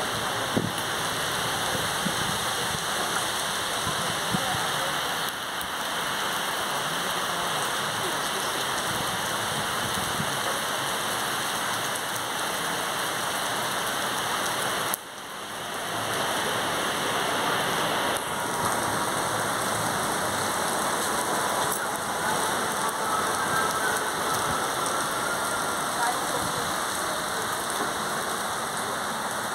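Steady rain falling on paving and parked cars: a dense, even hiss of rain. It drops briefly about halfway through and swells back.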